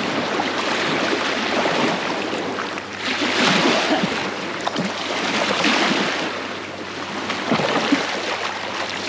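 Rushing river water and wind around a small fishing boat: a steady hiss of noise that swells a couple of times, with a faint low hum underneath.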